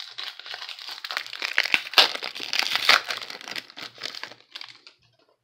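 The plastic wrapper of a Score football card pack crinkling and crackling as it is handled and torn open, loudest in the middle and dying away near the end.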